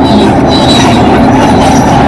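Bulldozer running, its diesel engine and steel crawler tracks making a loud, steady din.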